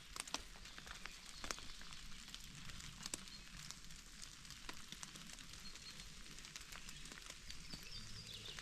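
Steady rain falling: an even hiss with scattered sharp drip ticks.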